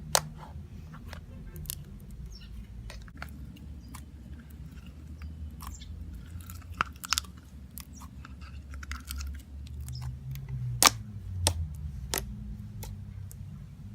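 Icing slime with foam balls being squished and stretched by hand, giving sizzly, sticky crackles and scattered sharp pops.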